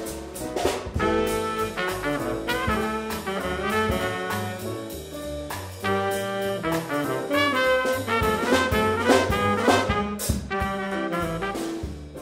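Jazz music led by brass horns, playing a changing melody over a steady beat.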